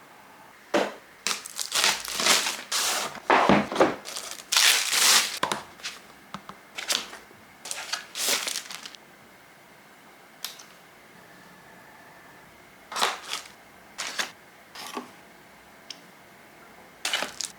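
Keyboard packaging being unboxed: the box and its wrapping rustle and crinkle in a dense run of handling noises over the first nine seconds, then a few scattered knocks and rustles.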